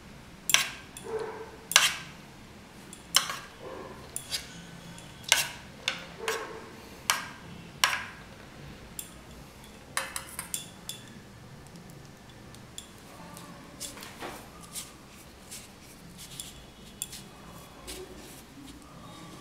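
A steel spoon clinking and scraping against a bowl of beaten egg as a coated chicken finger is turned and basted in it. It makes irregular sharp clinks, most of them in the first ten seconds or so, then only softer, sparser sounds as the piece goes into the biscuit crumbs.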